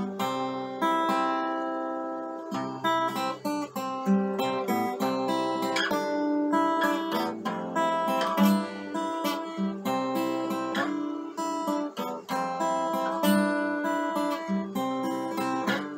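Acoustic guitar played solo, strummed and plucked chords with the notes ringing on.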